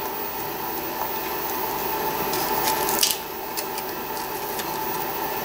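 A steady machine whir, with a few light taps and scrapes as fingers pry a thin stainless steel plate up off double-sided tape on a chipboard base. The clearest tap comes about three seconds in.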